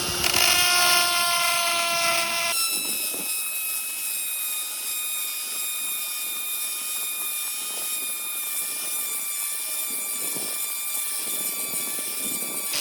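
Lathe spinning a bicycle wheel hub bearing cone at 1500 RPM while a grinding tool regrinds its pitted bearing surface: a steady, high machine whine over a grinding hiss. The pitch of the whine shifts about two and a half seconds in.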